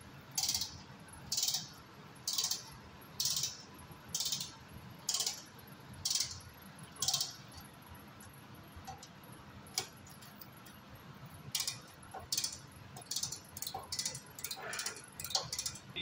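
Refrigeration service-valve ratchet wrench clicking in short bursts about once a second as it is worked back and forth on a compressor service valve stem, setting the valve to mid-seat. The regular bursts stop about seven seconds in, followed by scattered lighter clicks and metal taps.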